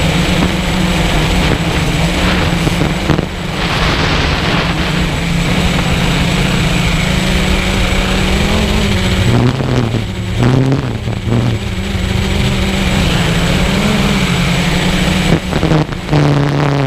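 Walkera QR X350 Pro quadcopter's brushless motors and propellers humming in flight, heard through the GoPro mounted on the drone, with wind rushing over the microphone. The pitch wavers and the sound dips around ten seconds in and again near the end as the motors speed up and slow down.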